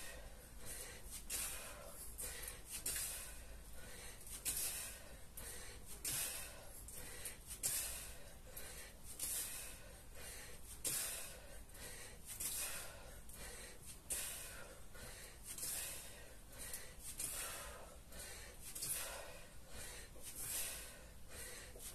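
A man breathing hard and rhythmically from kettlebell exertion, a forceful breath about every one and a half seconds.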